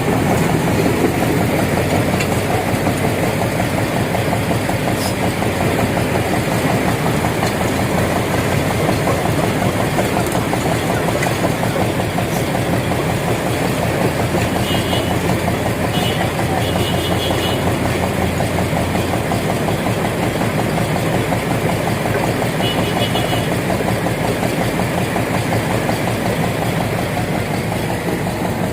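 A large engine running steadily and loudly at an even speed.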